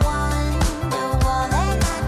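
Background music with a bass line, a melody and a steady beat.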